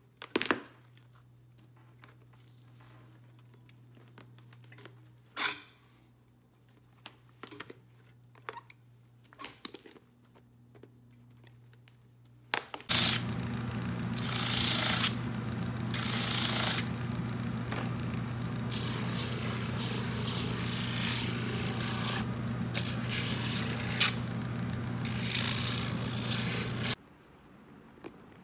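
A cobbler's finishing machine with sanding belts running loud, with repeated hissing stretches of sanding as work is pressed against the belts; it cuts off suddenly near the end. Before it starts, about half the time is quiet apart from a few clicks and knocks from pincers working the old sole of a boot.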